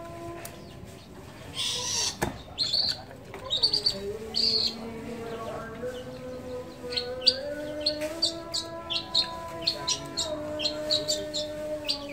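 Long-tailed shrike (cendet) singing: sharp high chirps in a few bunches, then a quick string of short chirps from about seven seconds in, over steady held background tones.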